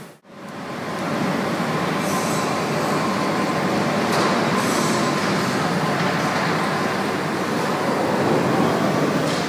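Glass-factory machinery running: a steady, even noise with a faint hum throughout.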